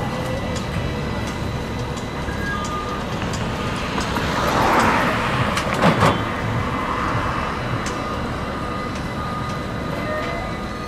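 Street traffic beside a tram line: a steady hum of vehicles and rail noise. A vehicle passes close about halfway through, followed by two sharp loud knocks about six seconds in.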